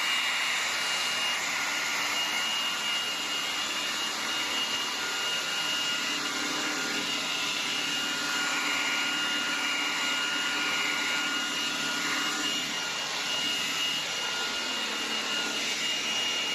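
PUPPYOO T12 Mate cordless stick vacuum running on its strongest "super" mode: a steady rush of air under a high, constant motor whine. It is "really strong".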